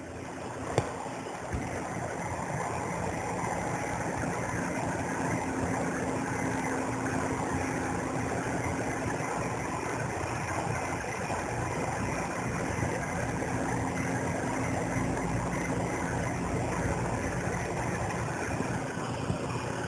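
A machine running steadily with a low hum under a constant whooshing noise, with a couple of small clicks in the first two seconds.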